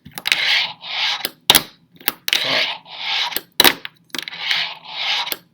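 Fingerboard riding back and forth on a hard surface. Short hissing wheel rolls about every half second alternate with sharp clacks as the board pops and lands.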